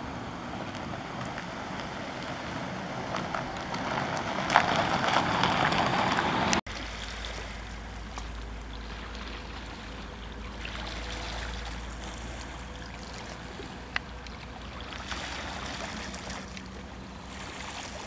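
A vehicle on the road, growing louder over several seconds and then cut off abruptly. Then small waves washing gently on a pebble shore in slow swells, with a low wind rumble on the microphone underneath.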